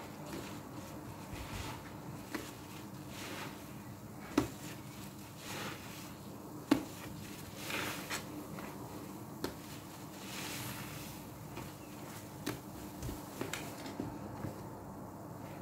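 Soapy sponge squeezed by hand in a plastic tub of foamy laundry-liquid water, squelching in repeated strokes. A few sharp clicks come through, the loudest about four and a half and nearly seven seconds in.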